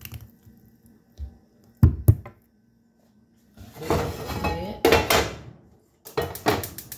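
Kitchen handling noise of a plastic mixing bowl of pancake batter with a wooden spoon in it. There are a couple of hard knocks about two seconds in, then a stretch of scraping and clatter. Near the end comes a rapid run of even clicks.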